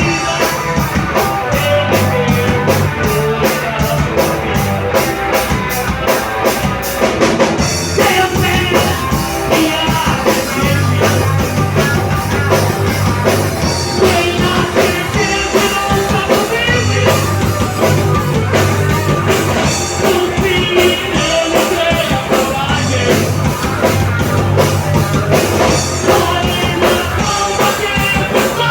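A rock band playing live: drum kit, bass and a singer, continuous and loud.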